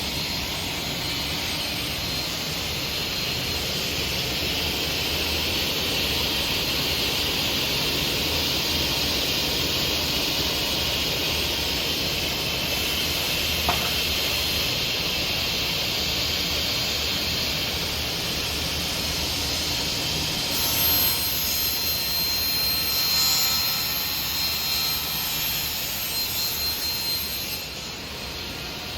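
Felder Format 4 Kappa 450 sliding table saw running, a steady hiss over a low hum. About two-thirds of the way through, the sound turns rougher and uneven for several seconds, then settles again.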